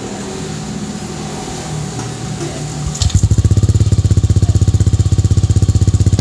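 A 155 cc single-cylinder Yamaha scooter engine running through a JVT titanium aftermarket exhaust with its adjustable setting fully open. It idles, then about three seconds in the throttle is opened and held, and the exhaust jumps to a loud, rapid, steady pulsing note.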